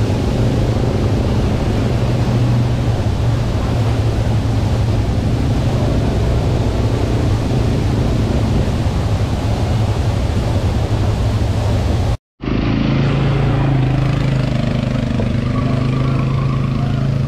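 Quad bike (ATV) engines running as the bikes drive through the pool under a waterfall, over the waterfall's steady rush. After a sudden cut about twelve seconds in, an ATV engine runs steadily on a jungle trail ride.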